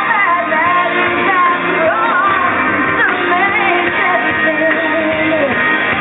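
A female lead vocalist sings a country-pop ballad live, backed by an amplified band. The sung melody slides and sustains over steady accompaniment.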